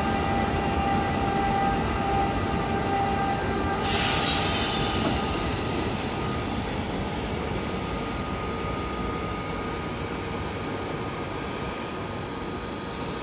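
A DB Class 185 electric locomotive and its tarpaulin-covered freight wagons rolling past, with several steady high squealing tones over the rumble of the wheels. About four seconds in there is a sudden loud hiss that fades over about a second. The train noise then slowly dies away.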